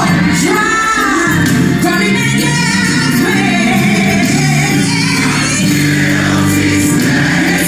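Gospel song: a voice singing drawn-out, sliding lines over keyboard and a moving bass line.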